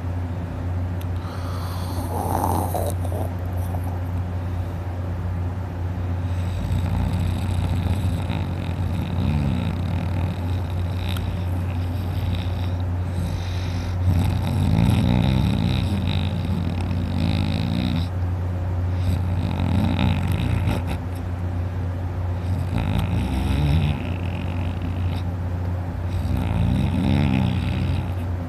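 A man snoring in deep sleep, rough snores recurring every few seconds over a steady low hum.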